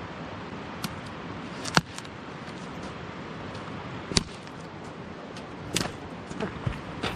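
Steady rush of a mountain stream. Several sharp clicks and knocks sound over it, the loudest just before two seconds in and just after four seconds in, with smaller ones near the end.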